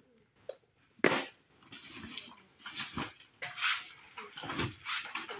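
Rummaging through a backpack full of paper and folders: irregular rustling and scraping, with a sharp knock about a second in.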